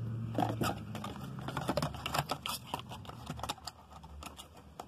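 Packaging and products being handled in an open cardboard shipping carton: a quick run of light rustles, crinkles and small clicks that thins out in the last second or so.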